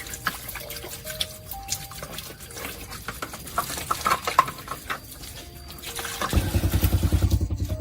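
Soft background music with scattered light clicks and taps. About six seconds in, a loud low buzz with a fast pulse starts suddenly.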